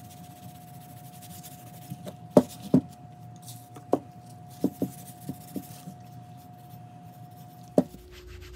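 Cleaning rag rubbing over a WD-40-coated axe head lying on newspaper, with about eight short light knocks as the head and can are handled. A faint steady hum runs underneath and stops near the end.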